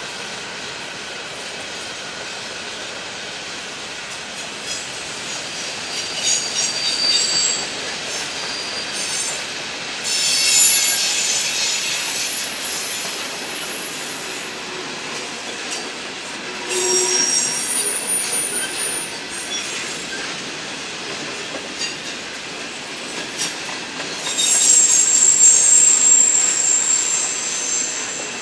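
Empty coal hopper cars rolling past, with repeated spells of high-pitched wheel squeal over the steady running noise, loudest about ten seconds in and again near the end.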